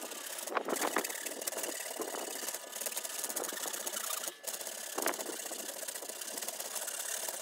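A hand file rasping back and forth over a stacked leather hammer handle, shaping the leather, with a short break a little past halfway as the file is lifted and repositioned.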